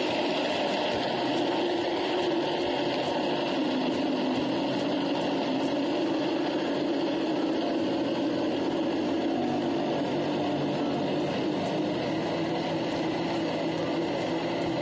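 Electric blender running steadily at speed, blending M150 energy drink with ice into a slush.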